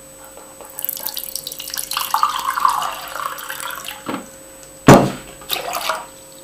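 Water being poured from a mug into a metal pot, splashing for about three seconds. It is followed by a few sharp knocks, the loudest about five seconds in.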